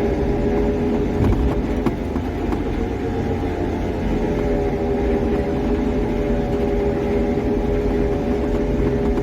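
Suzuki Carry DA63T kei truck running, its 660 cc three-cylinder engine and road rumble under a steady pitched whine. The whine fits the abnormal noise blamed on the truck's worn transmission, which is to be replaced.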